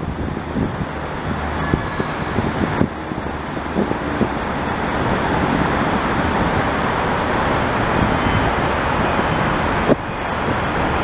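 Steady road traffic noise, an even roar that grows slightly louder over the first half, broken by a couple of brief knocks.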